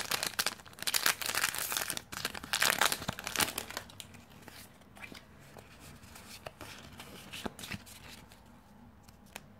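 Foil wrapper of a Pokémon Legendary Treasures booster pack being torn open and crinkled by hand. The crackling is loudest for the first four seconds, then drops to fainter rustling with a few light taps.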